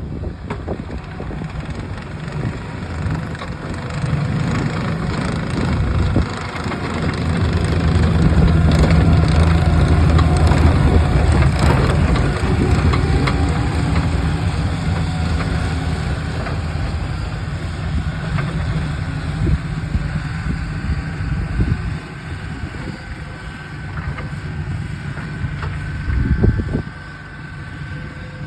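Tracked skid steer's diesel engine running as it plows snow, getting louder about a quarter of the way in and easing off in the second half, with a couple of knocks near the end.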